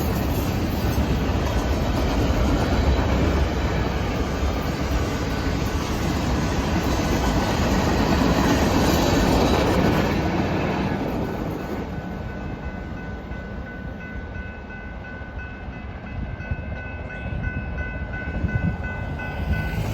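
Norfolk Southern manifest freight train's cars rolling past, steel wheels rumbling and clattering on the rails. About ten seconds in, the rumble fades and a steady high ringing of several tones sets in.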